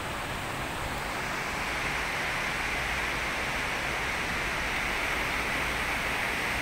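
Heavy rain pouring down steadily, a dense hiss that grows a little louder about a second and a half in.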